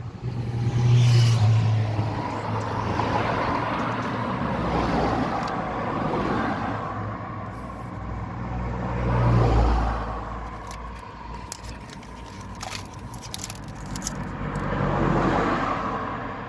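Toyota Corolla D-4D diesel engine running, its speed and loudness rising and falling a few times.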